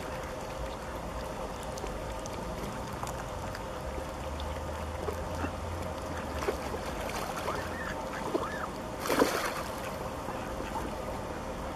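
Mallard ducks calling on a lake: scattered soft calls over a steady background, with one brief louder burst about nine seconds in.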